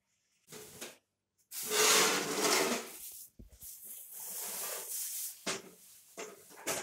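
Plastic film rustling as it is pulled off a new two-burner gas stove, loudest in the first half, followed by three short knocks as the sheet-metal stove is handled near the end.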